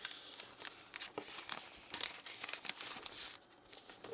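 A sheet of A4 paper crinkling and rustling in the hands as a paper airplane's wings are folded down and creased, in a run of short crackles.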